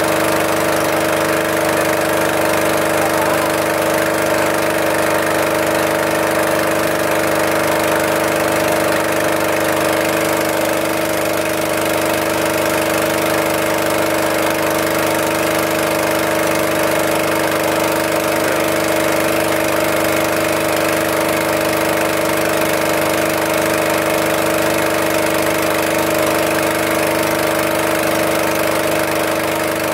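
Small passenger boat's engine running steadily while under way, an unchanging drone with several held tones, heard from on board.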